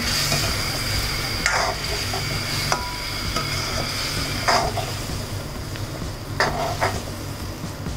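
A steel spatula stirring and scraping pieces of dudhi muthiya through a thick, simmering tomato gravy in an aluminium kadai, with a few clinks of the spatula against the pan over a steady sizzle.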